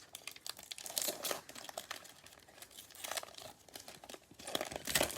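Plastic cello wrapper of a trading-card pack crinkling and tearing as it is opened by hand, in uneven crackles that grow loudest near the end.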